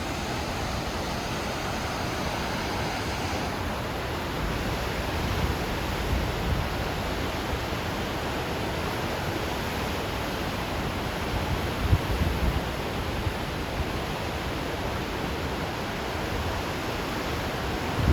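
Steady rush of water pouring from Akiba Dam, flood water being released after a typhoon, with a few gusts of wind buffeting the microphone.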